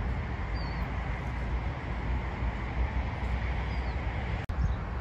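Wind buffeting the microphone outdoors: a steady rumbling hiss, with a faint bird chirp or two above it.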